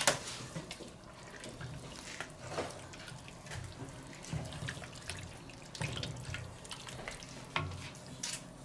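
A wooden spoon stirring thick, liquid tomato goulash in a cast iron Dutch oven: wet sloshing and squelching, with a few light knocks of the spoon against the pot, the sharpest right at the start.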